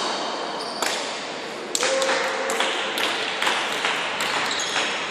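Badminton rally: a quick series of sharp racket hits on the shuttlecock, about eight of them, echoing in a large sports hall, with a few short squeaks between the hits.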